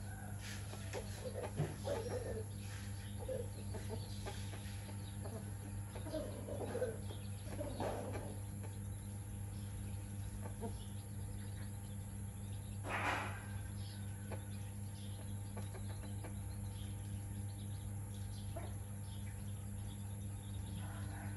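Hen clucking now and then in short, scattered calls, the loudest about 13 seconds in.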